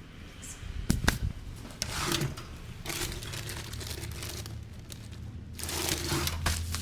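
Two quick, sharp joint cracks about a second in during a neck and head massage, followed by the rustle and rub of hands working over hair and skin, over a low steady hum.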